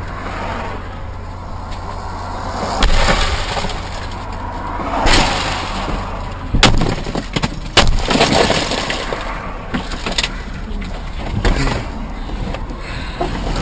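A few sharp bangs and crashing bursts over a steady low hum, with the loudest bangs about six and a half and eight seconds in.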